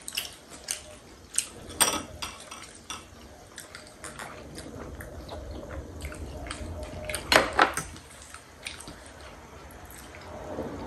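Metal forks clinking and scraping against ceramic plates and bowls while several people eat, in a series of sharp, separate clicks; the loudest cluster comes about seven seconds in.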